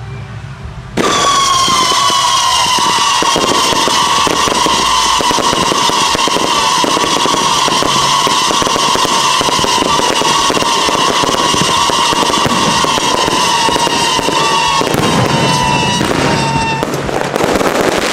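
Aerial fireworks going off. About a second in, a loud, long whistle starts and slowly falls in pitch over dense crackling and popping. The whistle stops near the end while more bursts go on.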